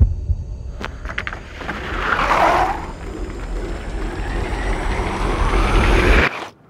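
Ski jumper's skis running down the inrun track of a ski jump: a steady low rumble with a hiss that swells about two seconds in, cutting off suddenly near the end.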